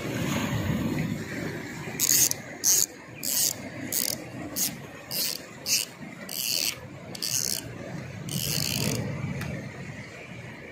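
Tica Cambria LZ5000 spinning reel's drag buzzing as line is pulled off the spool in about ten short, uneven pulls, each a brief high rasp.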